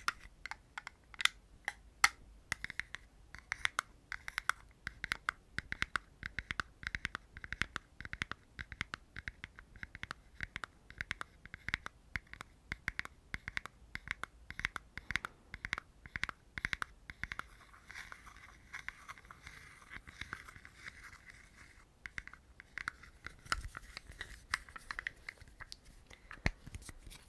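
Fingertips scratching and rubbing a soft white pad held close up, in quick repeated strokes several times a second. About eighteen seconds in it turns into a smoother continuous rub for a few seconds, then the scratching strokes return.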